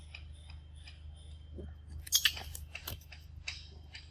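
A few sharp clicks and rustles in quick succession about two seconds in, over faint high chirps that repeat a few times a second and a low steady hum.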